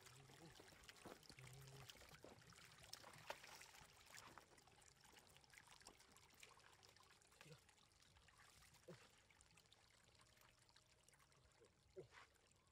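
Faint trickling of shallow runoff water with small splashes as catfish are grabbed by hand from the muddy water, busier at first and thinning out, with one sharper splash near the end.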